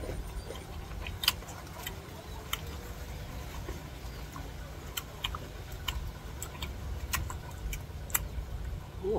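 Eating sounds: about a dozen sharp clicks and crunches at uneven intervals, from chewing and handling crisp green mango, over a low steady hum.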